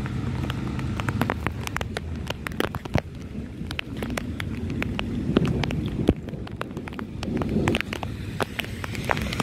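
Heavy rain falling on wet pavement, with many drops striking close to the microphone as sharp, irregular ticks. A low rumble underneath fades after the first couple of seconds.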